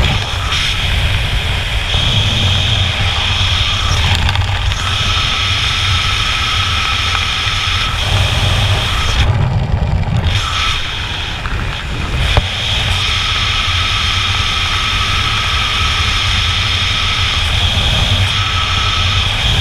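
Wind rushing over a GoPro's microphone during parachute canopy flight: a heavy, buffeting rumble with hiss above it and a thin whistle that comes and goes, easing briefly about nine seconds in.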